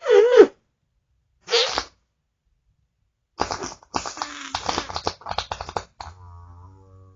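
Farts: two short ones with a wavering, falling pitch, then after a pause a long sputtering, crackling one of about two and a half seconds that trails off faintly.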